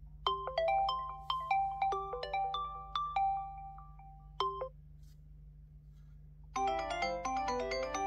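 ZTE Axon 40 Ultra ringtones playing. First a short melody of separate struck notes, each dying away, stops about four and a half seconds in. After a pause of about two seconds, a second tone starts as a fast cascade of notes.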